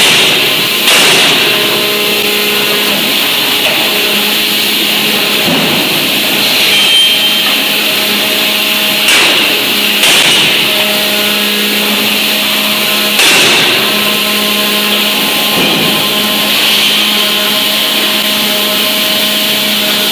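A 6-ton closed-die hydraulic forging hammer at work: its power unit runs with a steady hum and hiss, broken by a few heavy blows on a hot workpiece, one about a second in, two close together near the middle, and one a few seconds later.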